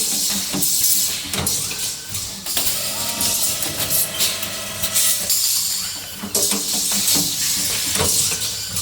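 Automatic steel-ring cutting, welding and beading machine running through its cycle: repeated bursts of compressed-air hiss, each one to two seconds long, with sharp mechanical clacks between them.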